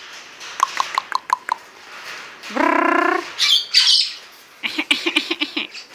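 Yellow-naped amazon parrots calling: a quick run of sharp clicks, then a short pitched squawk about two and a half seconds in, followed by two harsh high screeches and a fast stuttering call of about eight pulses a second near the end.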